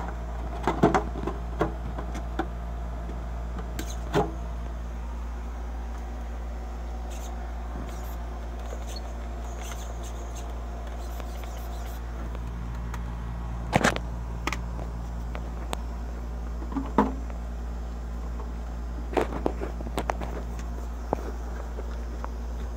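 Nitro glow engine of a Traxxas T-Maxx RC truck idling steadily on the bench. A few sharp clicks and knocks from handling the truck and the phone come over it.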